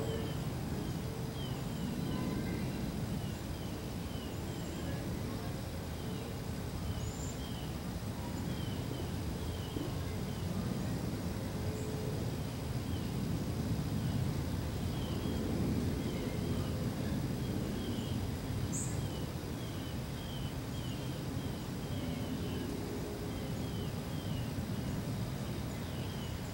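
Outdoor ambience: a steady low rumble, with a small bird giving short chirps over and over in the background and an odd higher chirp now and then.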